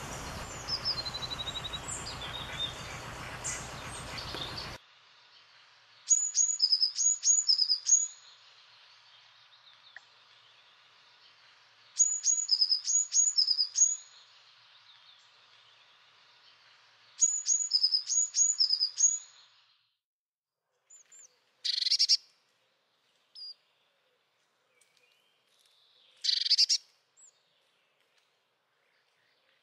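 A small songbird sings three short phrases of quick high notes alternating between two pitches, each phrase about two seconds long and several seconds apart. Near the end come a few short harsh calls. The first few seconds hold rustling outdoor noise with faint chirps, which cuts off suddenly.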